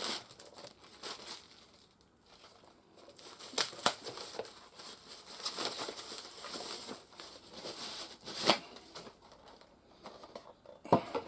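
Packaging crinkling and rustling as it is handled, in irregular spells with scattered clicks and knocks.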